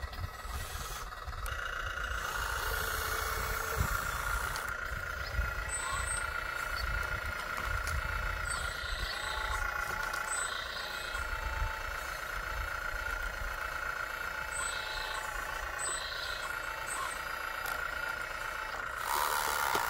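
Radio-controlled scale Kobelco excavator at work, its motor giving a steady whine as the boom and bucket move.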